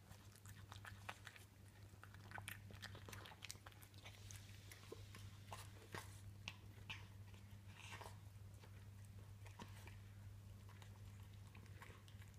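Devon Rex cat chewing and crunching broccoli and mashed potato from a bowl: faint, irregular wet clicks and crunches of eating.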